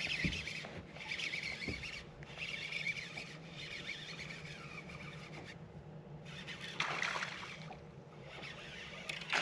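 Fishing reel cranked in spurts while reeling in a hooked fish on a bent rod, with water lapping at the boat. A brief louder swish comes about seven seconds in.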